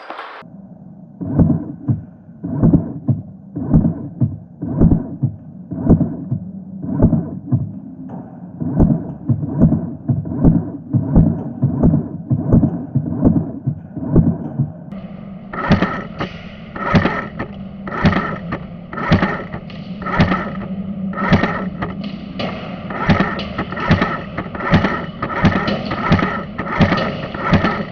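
Electronic background music with a steady, driving beat, sounding muffled at first and opening out to full brightness about halfway through.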